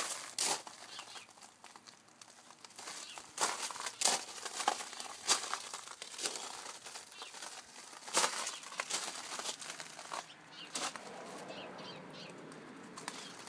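Footsteps crunching on gravel at an uneven pace, mixed with rustling from the handheld phone, sharp crackles coming every second or so.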